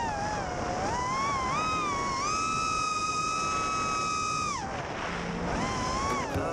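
Racing quadcopter's BrotherHobby Tornado T2 2206 2300KV brushless motors and props whining, the pitch rising and falling with the throttle. The whine holds high and steady for about two seconds, drops sharply, then climbs and wavers again near the end.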